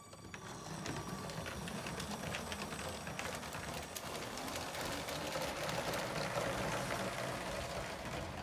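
Motorised LEGO high-speed passenger train running on plastic track: a steady rattle with quick irregular clicks from the wheels passing over the track joints. It grows louder over the first second.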